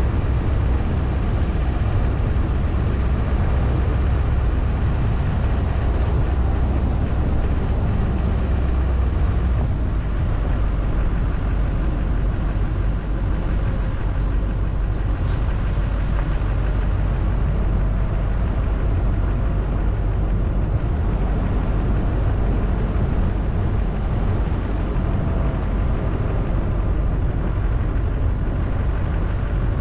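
A vehicle driving along a paved road: a steady low rumble of engine and tyre noise.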